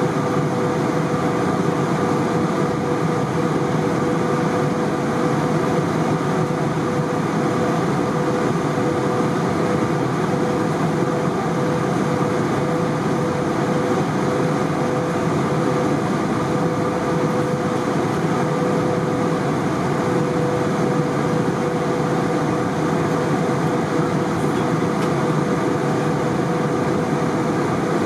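Steady in-flight cabin noise of an Airbus A320: a constant rush of airflow and engine hum with a steady tone running through it.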